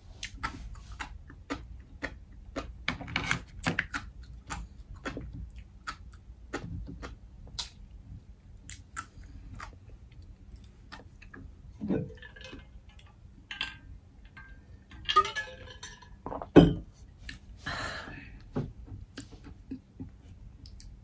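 Close-up chewing of steamed mussels: wet mouth clicks and smacks, with the rattle of mussel shells now and then. A single loud thump about two-thirds of the way through.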